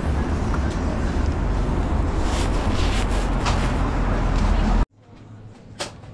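Steady low rumble and hiss of outdoor street background noise, which cuts off abruptly almost five seconds in, leaving a much quieter background with a few faint clicks.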